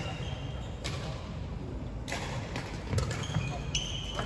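Badminton rackets striking a shuttlecock: several sharp pops roughly a second apart, the loudest about three seconds in. Short squeaks of court shoes on the wooden floor come in the second half, over a steady low hum.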